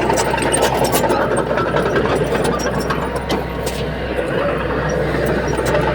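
Heavy diesel engine of earthmoving machinery running steadily, with scattered short clicks and rattles.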